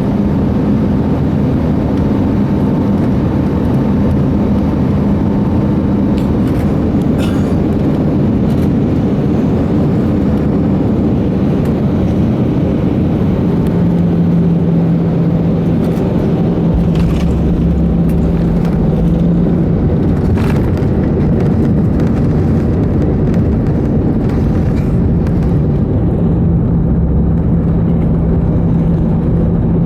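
Airbus A319 cabin noise as the aircraft rolls on the ground after landing: a steady rumble of the engines and wheels, with a hum that comes and goes and a few light knocks and rattles.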